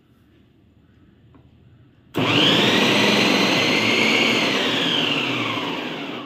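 Preethi Zodiac mixer grinder's motor starting suddenly about two seconds in, driving the food processor's slicing disc through onion with a loud whining hum. Its pitch and loudness fall steadily toward the end as it winds down.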